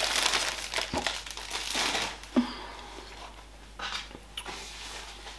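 Clear plastic delivery bag crinkling as it is handled. The crinkling is densest in the first two seconds, then fades to a few short crinkles around four seconds in.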